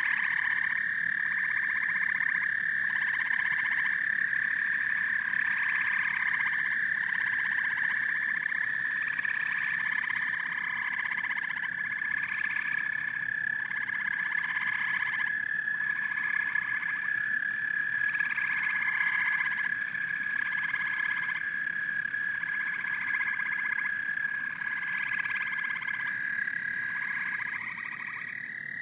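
Chorus of frogs croaking, with calls repeating about every second and a half over a steady high-pitched drone. The drone drops slightly near the end.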